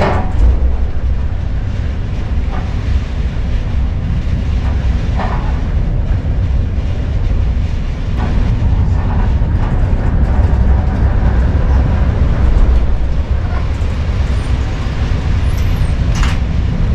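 Storm wind buffeting the microphone at sea: a heavy low rumble that swells and eases with the gusts.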